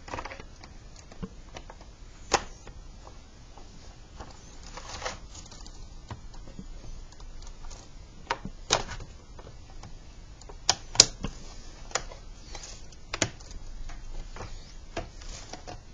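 Plastic keyboard and snap-on wrist rest being handled and turned over, with scattered sharp plastic clicks and knocks and some short rustling as the wrist rest's tabs are worked onto the keyboard's underside.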